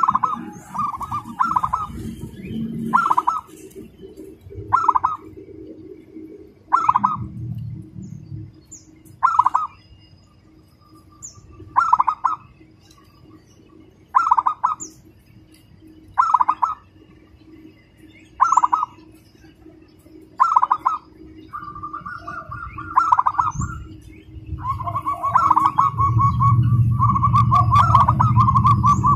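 Zebra dove (perkutut) singing: short rolling cooing phrases repeated about every two seconds, then longer rapid trills near the end. Brief high chirps of other birds come through in the background, and a low rumble sets in near the end.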